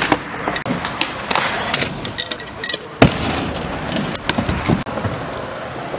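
Stunt scooter rolling on concrete, its wheels giving a steady rumble with scattered clicks and rattles, and one sharp loud clack about three seconds in as the scooter slams down on the concrete.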